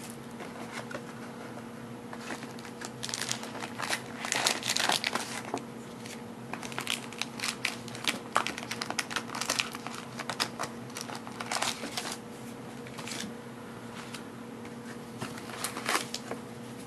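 Foil wrapper of a trading card pack crinkling and crackling in irregular bursts as it is handled and opened by hand, busiest through the middle. A steady low hum runs underneath.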